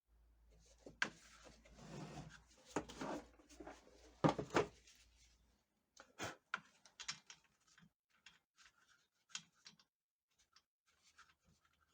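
Rustling with scattered clicks and light knocks of objects being handled, strongest in the first half, sparser and fainter after about six seconds.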